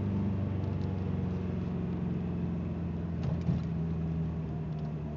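Ford Escort ZX2's four-cylinder engine running while the car is driven, its pitch falling slowly after a downshift, with one short knock about three and a half seconds in. The owner says the engine is misfiring badly.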